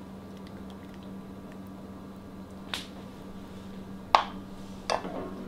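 A metal ladle clinks lightly against a plate three times, the second clink the loudest, over a faint steady hum.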